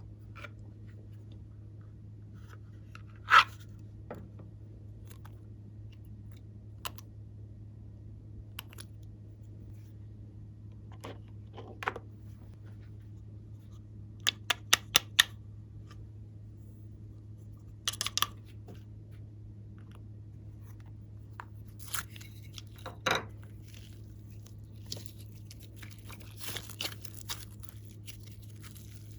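Slime being worked by hand, giving scattered sharp clicks and crackles over a steady low hum, with a quick run of four clicks about halfway through and denser crackling near the end.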